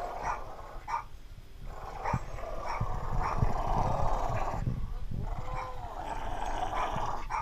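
Dog growling in play while tugging on a rope toy, in long rough stretches broken by two short pauses for breath.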